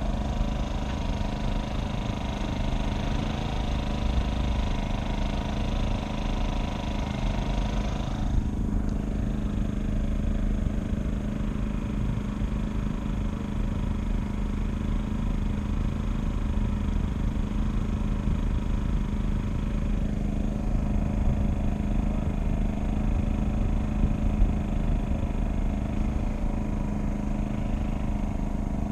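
A boat's engine running steadily with a low, even drone. Its higher tones drop away about eight seconds in.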